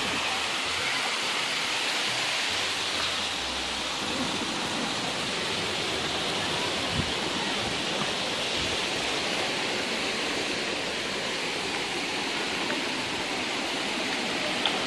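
Waterfall cascading over boulders: a steady rush of water.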